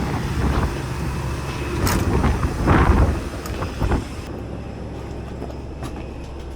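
Engine rumble with scattered knocks and clatter; about four seconds in it cuts to a quieter, steady low hum.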